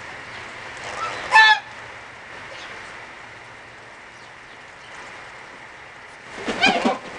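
Geese honking: one short honk about one and a half seconds in, then a louder burst of several overlapping honks near the end.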